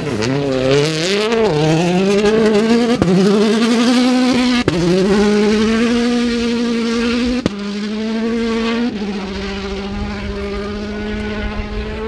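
Hyundai i20 Coupe WRC rally car's 1.6-litre turbocharged four-cylinder engine at full throttle, accelerating hard on gravel and shifting up four times, each upshift marked by a sharp crack and a drop in pitch. It then holds a steady note as the car pulls away.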